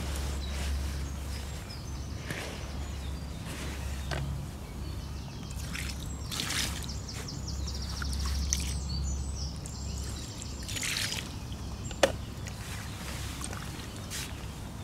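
Outdoor ambience: a steady low wind rumble on the microphone and birds singing, with rustling and plastic handling noises as a bait bucket is moved about, and a sharp click late on.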